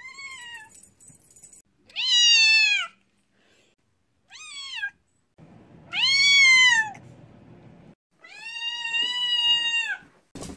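A white long-haired cat, fully deaf, meowing loudly five times, each meow an arched call that rises and falls, the last one drawn out longest.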